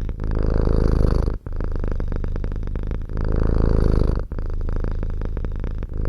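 Domestic cat purring close up, a continuous rumble that swells to a stronger stretch of about a second roughly every three seconds, between softer stretches.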